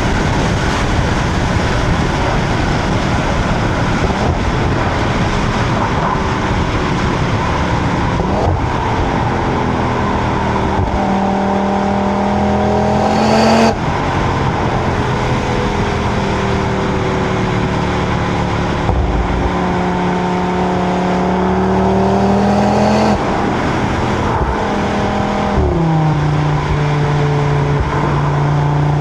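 Audi RS3's turbocharged 2.5-litre five-cylinder exhaust, stock with no flap control, heard from the rear under a gentle pull at motorway speed over steady tyre and wind roar. The engine note climbs slowly, drops sharply with an upshift about halfway through, then climbs again and drops twice near the end.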